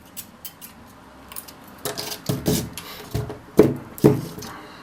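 Clicks, scraping and knocks of hand work prying apart a laptop battery pack's 18650 cells, with two sharp knocks about three and a half and four seconds in.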